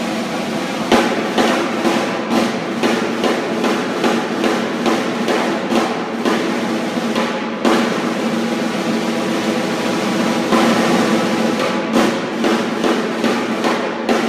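Field snare drums of the flag-wavers' musicians playing a continuous rolling cadence, with accented strokes about three times a second. A steady held tone sounds underneath the drumming.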